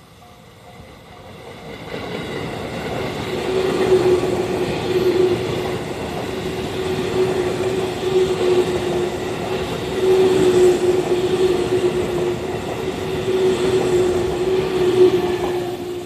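JR Central 313 series electric multiple unit passing close by: the rush of wheels on rail swells over the first two seconds, stays loud with a steady hum under it, and falls away at the very end as the train clears.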